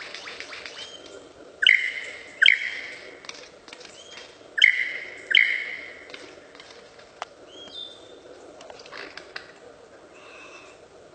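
A bird calling: two pairs of short, loud calls a few seconds apart, each sharp at the start and fading off, followed by a few fainter calls.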